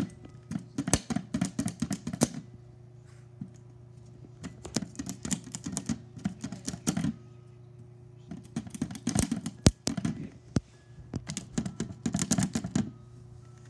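Rapid clattering taps of a hard plastic stick knocking against an upturned plastic bowl, in four spells of about two seconds each, over a steady low hum.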